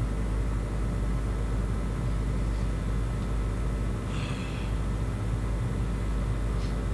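Steady low rumble with a hum of background noise, and a faint brief sound about four seconds in.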